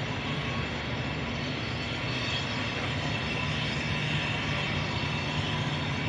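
Steady low rumble of ambient outdoor noise, even throughout, with no distinct events standing out.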